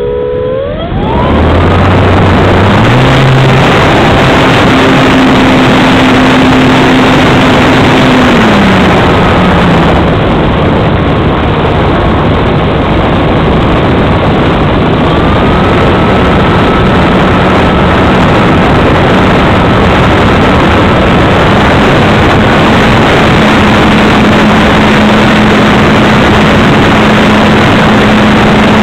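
A model aircraft's motor and propeller spool up with a rising whine, then run at high power in flight, heard from an onboard camera through heavy wind rush. The motor pitch dips about eight seconds in and climbs again around fifteen seconds.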